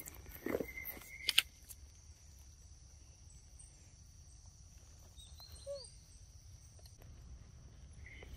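Outdoor ambience with a steady high insect drone. A few sharp clicks come in the first second and a half, the loudest about a second in, and a short falling chirp sounds about halfway through.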